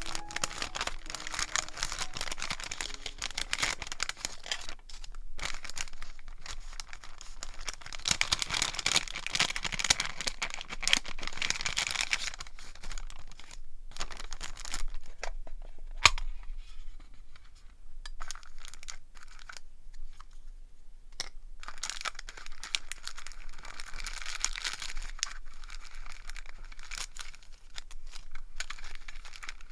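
Glassine envelope and small paper scraps rustling and crinkling as hands handle them and sort through the pieces, in irregular spells, with one sharp click about halfway through.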